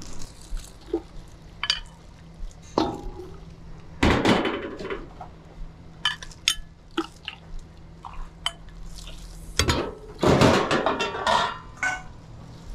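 Kitchen clatter of bowls, ladle and utensils clinking and knocking while bowls of phở are made up, with two longer rushes of noise, about four seconds in and again about ten seconds in.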